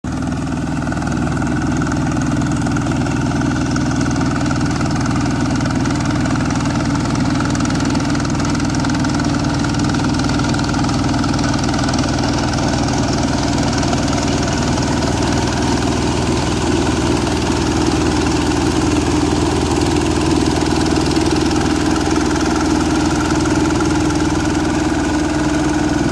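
Quick H-140R mini rice combine harvester running steadily as it cuts and threshes rice, its engine giving a constant, unchanging drone.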